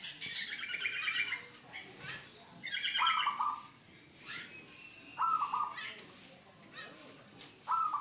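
Zebra dove (perkutut) cooing its song: three short bursts of rapid low notes, spaced a little over two seconds apart. Higher chattering bird calls sound in the first second and again just before the second burst.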